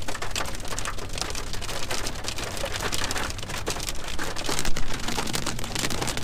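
Heavy rain coming down hard: a dense, steady patter of drops, over a low steady hum.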